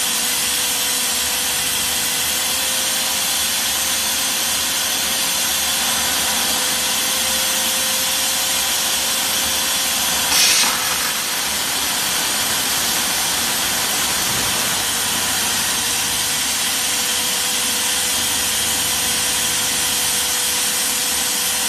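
Steam car wash machine running: a steady hiss with a steady motor hum under it, and a brief louder burst of hiss about ten seconds in.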